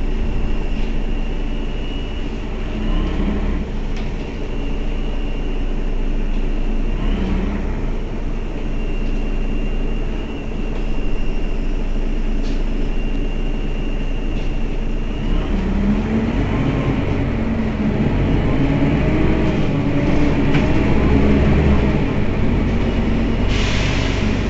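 Mercedes-Benz Citaro city bus engine idling at a stop, with a thin high whine that comes and goes. Near the end comes a short hiss of compressed air.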